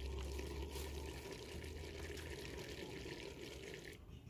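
Potato and radish-pod curry simmering in a clay pot, a steady watery hiss that stops abruptly near the end.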